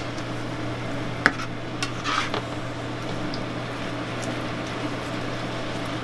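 A cooking utensil clinking and scraping against a pan while the food is stirred: one sharp clink about a second in and a short scrape around two seconds in, over a steady low hum.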